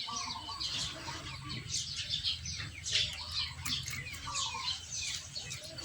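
Birds chirping and calling over and over, short quick chirps throughout, with a faint low hum underneath.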